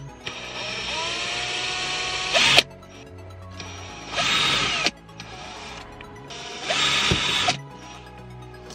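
Cordless drill boring small pilot holes into a car's centre console, in three runs: a first of about two seconds, then two shorter ones, the motor's pitch sliding as it spins up and bites. Background music plays quietly underneath.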